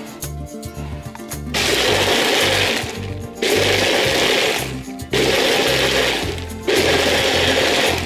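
Personal bullet-style blender running in four pulses of about a second and a half each, starting about a second and a half in, blending soaked solid pieces in water. Background music with a steady beat plays underneath.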